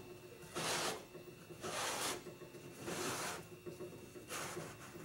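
Four or five short rubbing, scraping swishes about a second apart, as the fuel tank's plastic retaining ring is worked by hand over the pump-module flange.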